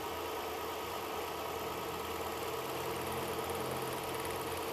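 Mitsubishi Pajero V73's V6 engine idling, with a fast, even ticking that sounds like valve tick. It comes from a spark plug lead pulled slightly loose and leaking current, not from inside the engine.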